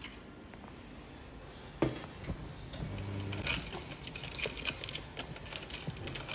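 A sharp knock about two seconds in, then rustling and clicking of paper sugar sachets being grabbed by the handful from a clear plastic dispenser box.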